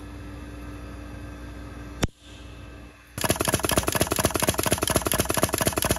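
Pneumatic trigger test rig cycling a drop-in AR-15 trigger: a fast, even run of sharp mechanical clicks starting about three seconds in, as the air cylinder pulls the trigger and the hammer snaps, in an endurance test close to its 10,000-cycle end. Before it, a steady low hum and a single sharp click about two seconds in.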